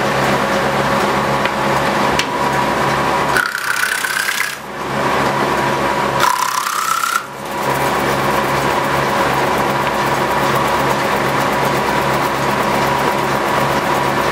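A 1930s Osbyverken side planer planing the edges of oak barrel staves, a loud steady rasping of wood being cut over a steady machine hum. Twice, a few seconds in, the rasp drops away briefly and a short rising whine comes through.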